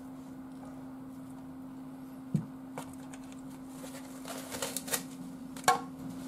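Kitchen handling noises: a sharp knock about two seconds in, then plastic cling wrap crinkling as it is pulled off a foam meat tray and balled up, with a louder click near the end. A steady low hum runs underneath.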